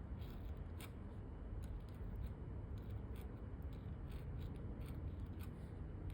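Scratchy calligraphy pen nib scraping across paper in short, irregular strokes, over a low steady hum.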